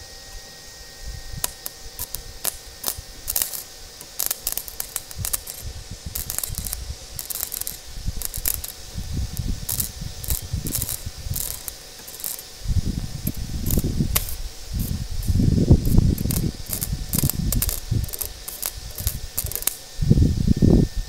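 Stick-welding arc powered by car batteries, crackling and sputtering in quick irregular bursts as the rod strikes and breaks the arc again and again. Heavy low rumbling bursts join in during the second half.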